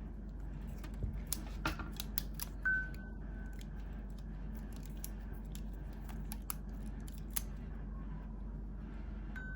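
Small sharp clicks and taps of tools and parts being handled during an Apple Watch battery repair, a quick cluster in the first few seconds and a few scattered ones later, over a steady low electrical hum. Two short high beeps sound, one about a third of the way in and one near the end.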